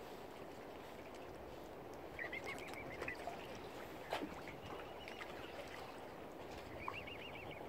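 Lakeshore ambience: a steady wash of wind and water noise, with a bird's warbling call about two seconds in and again near the end, and a few sharp clicks.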